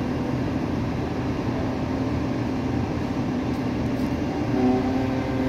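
Mobile crane's engine running steadily, a continuous low hum.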